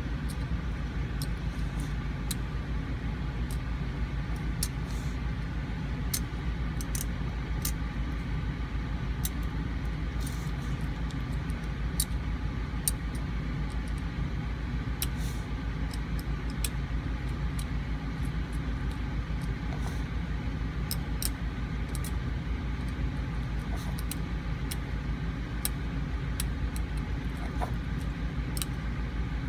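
Steel hand scaler ticking and scraping against a dog's teeth as tartar is cleaned off, in short scattered clicks, over a steady low hum.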